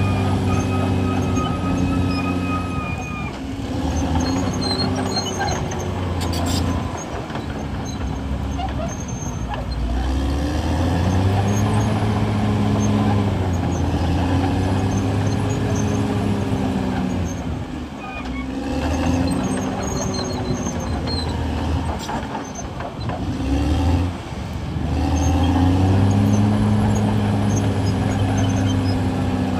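CAT D6R XL bulldozer's diesel engine working, its note dropping and climbing again several times as the load changes. A high squealing tone sounds over it for the first three seconds.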